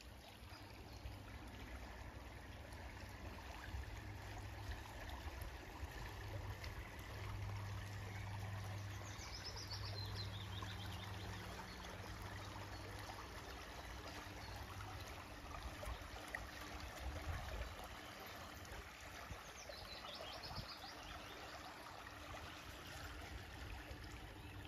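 Shallow stream running steadily. A high, descending trill sounds twice, about ten and twenty seconds in.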